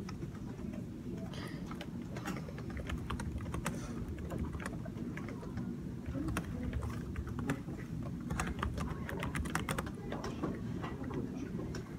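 Typing on a computer keyboard: irregular key clicks, with a quick run of keystrokes in the second half, over a steady low room hum.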